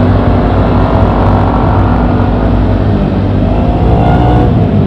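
Honda Beat scooter's engine running through an MP7 regulation 'hiung' aftermarket exhaust while riding, under heavy wind noise on the microphone. Its note rises briefly about three and a half seconds in.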